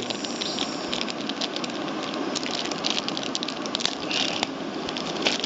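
Clear plastic packaging bag crinkling and crackling in the hands as a charger adapter is taken out of it, with many irregular small crackles.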